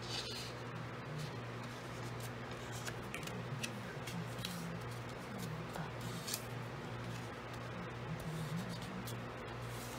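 Cardstock being folded and pressed flat by hand: light paper rustles and a few brief scrapes, over soft background music.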